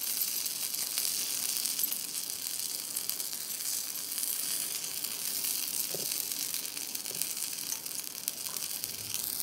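Bread sizzling in a hot oiled non-stick frying pan, a steady hiss, with soft scraping as a steel spoon spreads Schezwan chutney over the slice.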